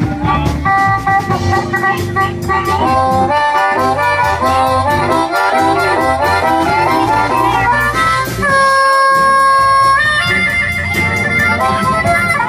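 Live blues band playing, with a blues harp (harmonica) taking the lead over electric guitars and drums. The harmonica holds one long note about eight and a half seconds in, then breaks into a quick trill.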